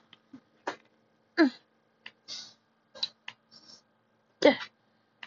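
Glitter slime squelching in short separate sticky pulls and smacks as a small plastic toy figure is pressed into it and pulled free, the two loudest about a second and a half and four and a half seconds in, each with a falling squeak.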